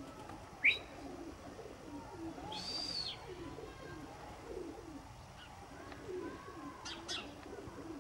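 Domestic pigeons cooing continuously in low, rolling calls, with a few short, high chirps from another bird over them. The sharpest chirp comes about a second in, and a quick pair comes near the end.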